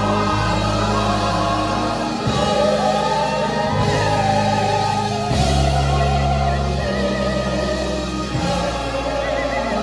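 Gospel choir singing over held low accompaniment chords that change every few seconds.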